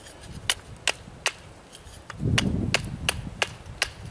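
Knife blade striking a wooden bow-drill spindle stick, chopping knots off it: a series of sharp knocks, about two or three a second, with a short low rumble about two seconds in.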